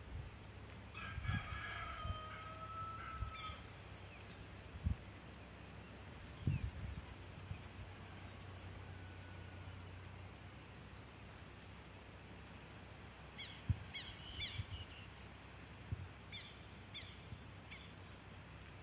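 A rooster crows once, starting about a second in and lasting about two seconds. About two-thirds of the way through comes a quick run of short, high chirps, and a few soft low thumps fall here and there.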